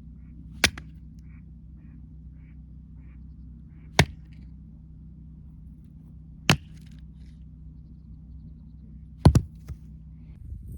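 A 5 kg splitting axe striking firewood four times, a few seconds apart, the last strike a quick double knock.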